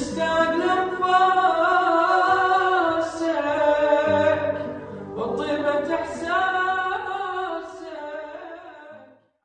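A voice singing long, ornamented held notes in a Middle Eastern style, dipping briefly twice and fading out near the end.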